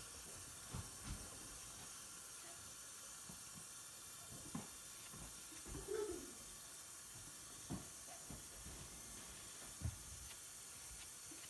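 Faint steady hiss with a few scattered soft knocks and rustles of a paper towel being rubbed over the face to wipe off a scrub mask.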